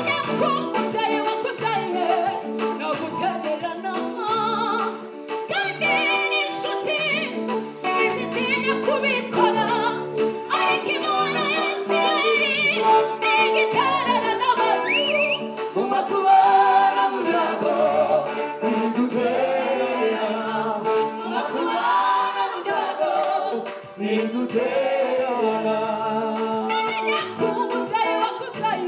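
Live gospel worship music: a woman sings lead through a microphone over a steady instrumental backing.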